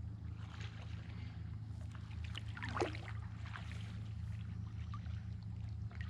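Kayak paddle strokes in the water, a few swishes and splashes, the loudest about halfway through, over a steady low hum.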